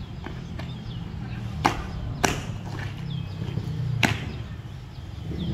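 Drill boots striking asphalt: a few light marching steps, then three sharp stamps, the loudest about four seconds in, as a foot-drill commander marches and stamps to a halt. A steady low rumble runs underneath.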